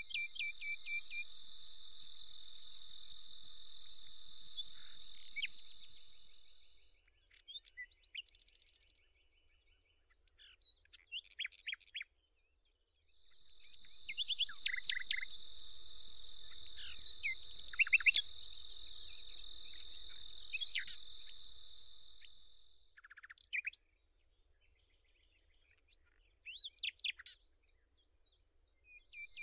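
An insect, cricket-like, singing in two long bouts of rapid, even pulses, the first stopping about seven seconds in and the second running from about 13 to 22 seconds. Short bird chirps come in and out throughout.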